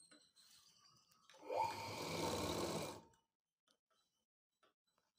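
Sewing machine running a short burst of stitching for about a second and a half, its pitch rising as it starts, then stopping. A few faint clicks before and after.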